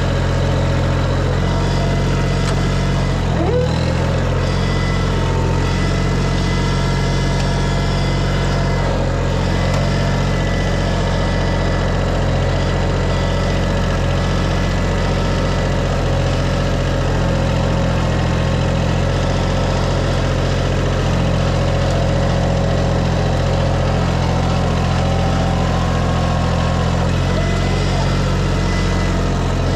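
An engine running steadily at a constant speed, with a brief wobble about three and a half seconds in.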